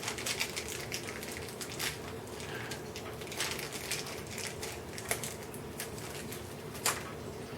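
Small clock parts, metal hands and the clockwork, being handled: scattered light clicks, taps and rustles at an irregular pace.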